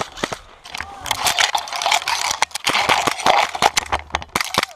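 Airsoft guns firing rapid, irregular strings of sharp clicks, loudest and densest in the last two seconds, over the rustle and crackle of branches being pushed through while on the move.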